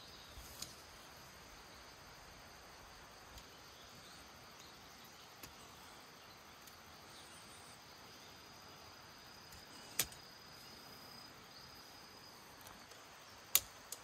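Plastic pole clips of a BUNDOK Solo Dome BDK-08 tent snapping onto its poles during pitching: two sharp clicks a few seconds apart, the second the louder, over a faint steady background hiss.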